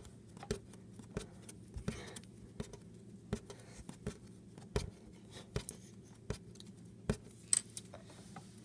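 A small ball being batted back and forth by hand on a wooden shelf, giving short, sharp taps about once every three-quarters of a second.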